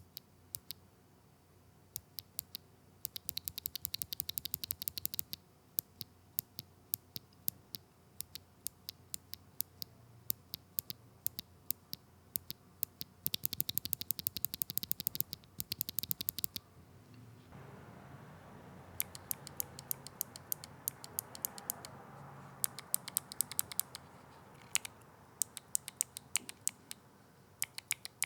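A single Gateron Melodic clicky mechanical keyboard switch pressed by hand over and over, its metal click leaf snapping out sharp, high-pitched clicks. Some presses come singly, others in fast runs of a few seconds.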